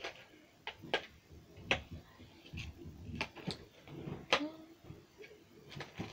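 Irregular small clicks, taps and crinkles of hands opening a small plastic-and-card gift package.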